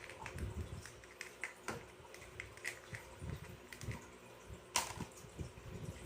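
Small plastic toy dishes, cups and spoons being handled, giving a run of light irregular clicks and taps with soft low knocks, and one sharper click about five seconds in.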